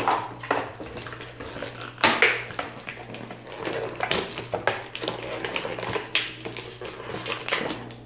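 Clear plastic blister packaging crinkling and crackling as it is handled and pulled apart, in irregular rustles and sharp crackles.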